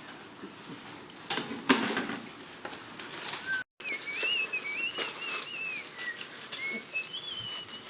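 Scattered clicks and short scrapes, then, after an abrupt cut, a high wavering whistle that slides between notes for about four seconds.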